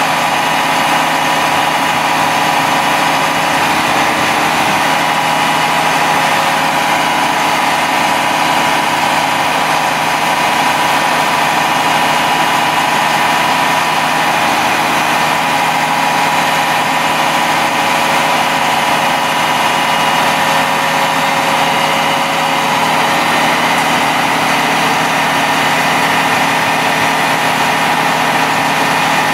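International DT466 7.6-litre inline-six turbo diesel idling steadily, with a steady high whine running over it.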